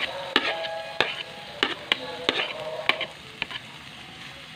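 A kitchen knife scraping and tapping chopped onion off a cutting board into a wok: about seven sharp knife clicks over the first three seconds or so, over a low sizzle of oil frying garlic and red bell pepper.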